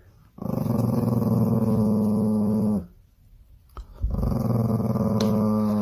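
A small dog growling twice, each growl a long steady rumble of about two seconds, with a short pause between them.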